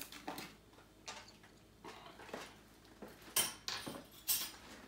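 Kitchen utensils and dishes clinking and knocking: a spoon and containers handled at the counter. Irregular sharp clicks, with two louder knocks near the end.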